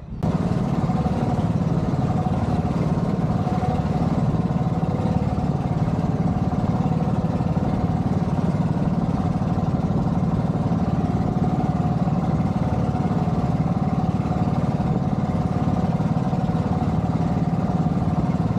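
Engine of a bangka outrigger boat running steadily under way, an even, unchanging drone that starts suddenly just after the beginning.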